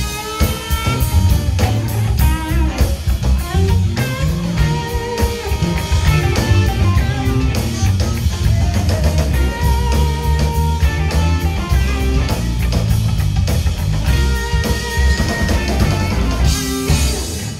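Live electric blues band playing: electric guitars over bass and a drum kit, breaking off right at the end.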